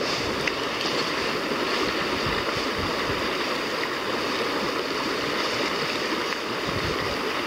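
Steady rush of a river's current running over shallow, rippled riffles.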